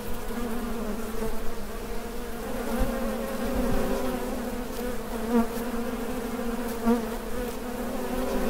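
Honey bees buzzing from an open hive: a steady, dense hum with a low fundamental and overtones, swelling briefly a few times as bees fly close.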